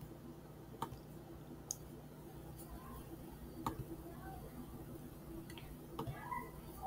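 Computer mouse clicking: about six single clicks at irregular intervals, over a faint low steady hum.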